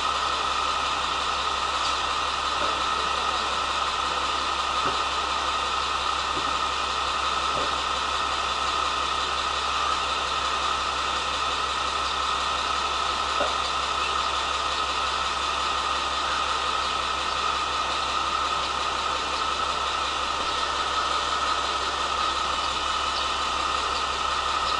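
KiHa 47 diesel railcar's engine idling steadily while the train stands still, heard from inside the carriage as an even, unchanging hum.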